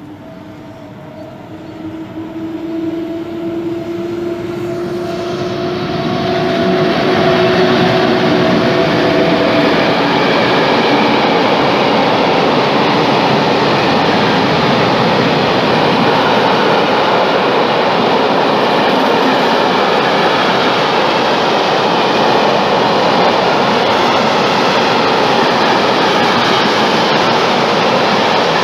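Freight train of open gondola wagons hauled by an electric locomotive, approaching and then rolling through the station. A whine rises slightly in pitch as the locomotive nears. From about six seconds in, a loud, steady running noise of wheels and wagons takes over as the train passes close by.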